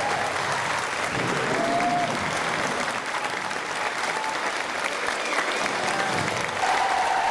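Audience applauding steadily, with a few brief calls rising over the clapping and one longer call near the end.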